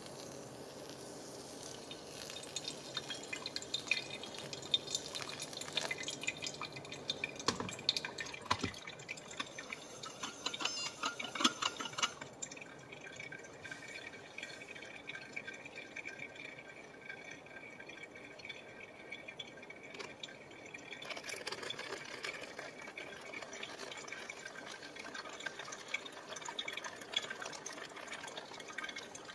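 Hot water poured in a thin stream from a gooseneck kettle onto coffee grounds in a V60 pour-over dripper; the pour stops for several seconds midway and starts again near the end.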